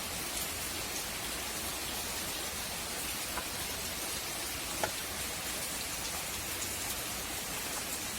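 Steady hiss with a few faint, short clicks as the plastic cover of a small submersible pump is handled and pushed into place.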